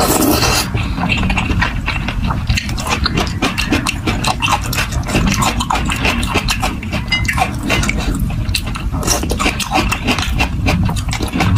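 Close-miked eating of thick noodles in spicy sauce: a wet slurp right at the start, then chewing with many small moist mouth clicks and smacks.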